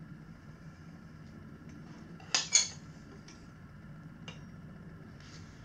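Tire levers clinking against a motorcycle's metal wheel rim while the tire bead is levered on: a few sharp metal clinks, the two loudest close together about two and a half seconds in, with lighter ones after.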